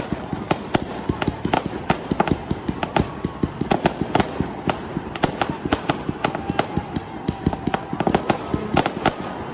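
Fireworks firing a rapid, steady string of sharp pops and bangs, several a second and unevenly spaced, as a column of red and green stars is shot up from the ground.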